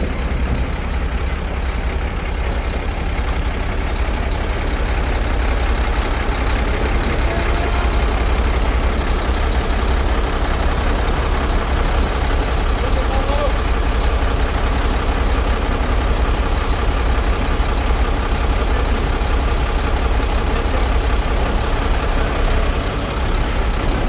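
Heavy truck's diesel engine running steadily, a deep low rumble.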